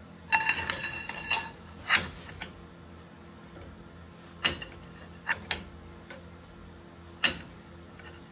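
Metal clanking of a steel breaker bar being fitted onto the socket of a C-frame ball joint press, with a ringing clank about half a second in. Then a few separate sharp metallic clicks and knocks over several seconds as the bar turns the press screw to push a new lower ball joint into the control arm.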